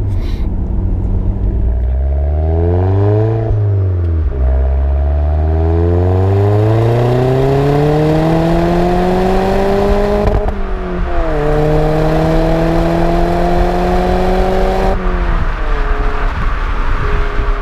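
Alfa Romeo Giulietta QV's turbocharged four-cylinder, breathing through a Supersprint exhaust with the silencer deleted, accelerating through the gears. The engine note rises steadily and drops sharply at each of three upshifts, then holds steady near the end.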